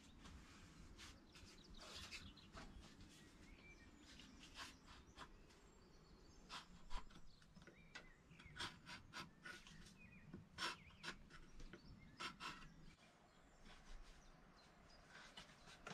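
Faint, irregular scraping strokes of a knife blade shaving wood while carving a wooden candlestick, some strokes coming a few a second.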